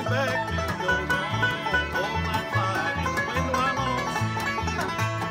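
Bluegrass band playing an instrumental break on banjo, acoustic guitar, upright bass, fiddle and dobro, with a sliding lead melody over a steady upright-bass pulse.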